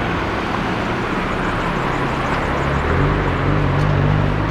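City street traffic: a steady wash of passing cars, with an engine hum that swells about three seconds in as a vehicle passes close.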